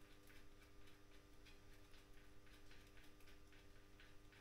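Faint, irregular clicks and light rubbing as a Helkama Jopo's front tyre is worked onto the wheel rim by hand, over a steady faint hum.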